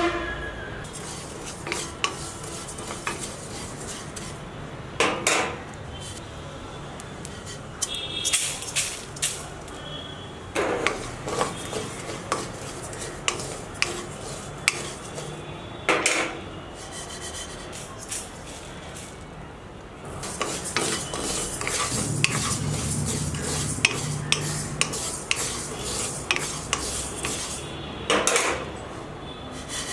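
Metal cooking utensil stirring and scraping in a cooking pot: frequent light clinks with a handful of louder clanks. The general noise gets louder about two-thirds of the way in.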